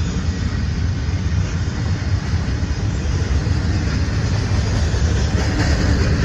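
Norfolk Southern freight train running: a steady low rumble with a rushing hiss above it, slowly growing louder near the end.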